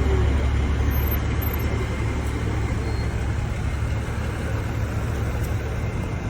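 Road vehicle traffic with a steady low rumble, easing slightly near the end.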